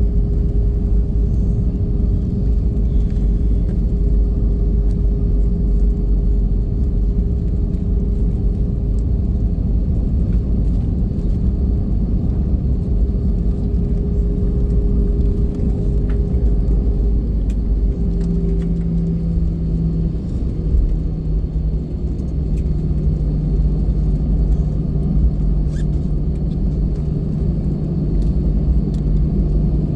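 Airbus A320 cabin noise during the landing rollout: a loud, steady low rumble of the engines and the wheels on the runway. A steady hum fades out a little past halfway, and a lower hum takes over and drops slightly in pitch.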